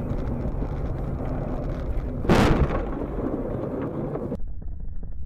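Road and engine noise inside a car on a snowy road, broken a little over two seconds in by one loud sudden impact with a short rushing tail, as the car is engulfed in a cloud of snow. Near the end the sound cuts abruptly to thinner, quieter car noise.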